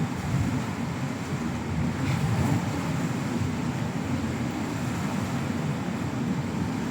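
Wind buffeting the phone's microphone in a steady low rumble, with ocean surf washing behind it.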